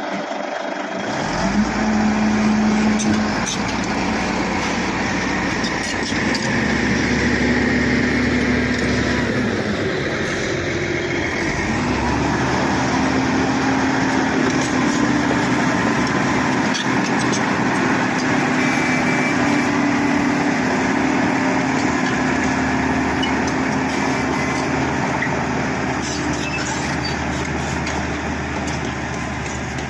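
Bulldozer's diesel engine running steadily under working load, its engine note rising and falling a few times as the throttle and load change.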